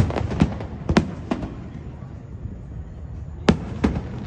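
Fireworks going off: a quick string of sharp bangs in the first second and a half, a lull, then a few more bangs near the end.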